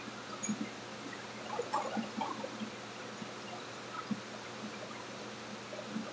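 Water splashing and dripping as a whole octopus is dipped into a pot of boiling water and lifted back out, with small splashes busiest about two seconds in. A steady hum from the kitchen's exhaust hood runs underneath.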